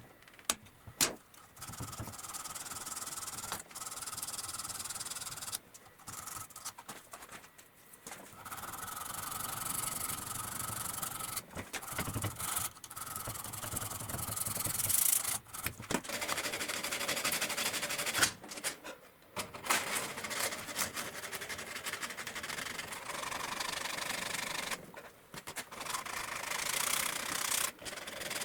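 Sanding on the knife, in long hissing stretches of several seconds broken by short pauses, with a couple of sharp clicks about a second in.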